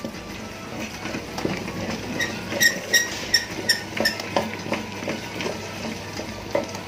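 Tabletop wet grinder running, its stone rollers turning thick urad dal batter in the steel drum, with small knocks as a hand scrapes the batter. About two seconds in, a run of about seven sharp metallic clinks lasts about two seconds.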